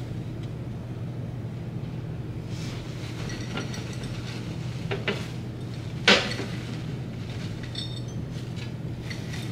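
A vase knocking against a glass-topped table: a small knock about five seconds in, then a sharp, loud one a second later, and light clinks near the end, over a steady low hum.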